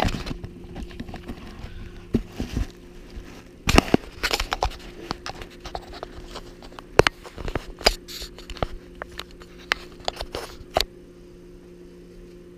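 Handling noise of a GoPro action camera being picked up and repositioned: irregular knocks, clicks and scrapes against its body and mount, stopping about eleven seconds in. A steady low hum runs underneath.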